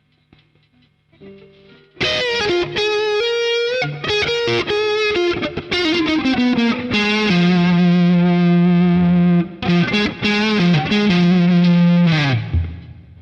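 Fender Stratocaster played through the lead channel of a Boss Katana 50 MkII amp, recorded direct over USB: after a near-silent start, a distorted lead phrase with bent and sustained notes, ending with a slide down in pitch.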